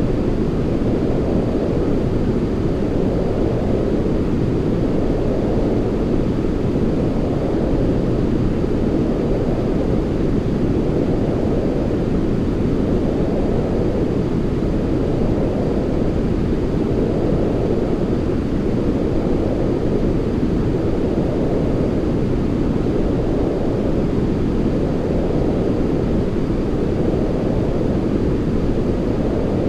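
Steady, deep white-noise sleep sound: an even rushing hiss weighted toward the low end, with no pattern but a faint slow swell about every two seconds.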